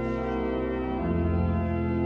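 Church organ playing held chords, moving to a new chord about a second in.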